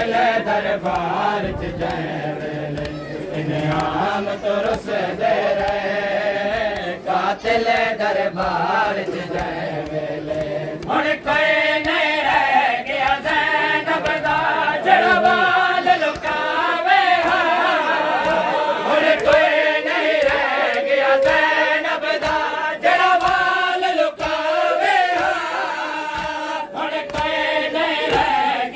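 A group of men chanting a noha (Shia mourning lament) in unison. Regular sharp slaps keep the beat, typical of chest-beating (matam).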